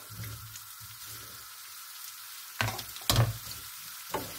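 Sliced wurstel sizzling as they fry in hot oil in a pan, tipped in from a wooden board and stirred with a wooden spoon. Two sharp knocks of wood against the pan, about half a second apart, come a little past halfway.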